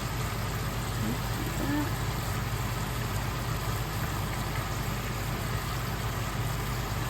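Kitchen range hood vent fan running with a steady low hum.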